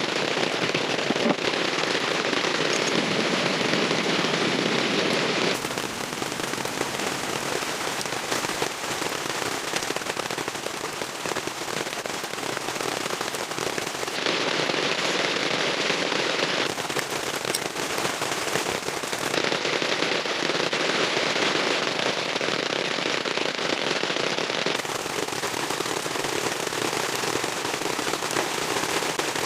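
Rain pattering densely on a surface, a steady crackling hiss of many small drop impacts. The sound changes abruptly several times.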